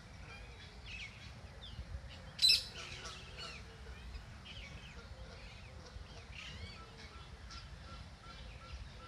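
Canada goose goslings peeping, a steady run of short, high-pitched peeps. There is one short, loud call about two and a half seconds in.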